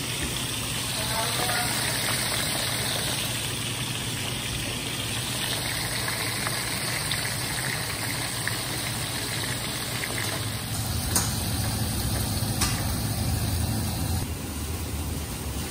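Pieces of mullet deep-frying in a pan of hot oil, a steady sizzle, with two sharp clicks in the second half.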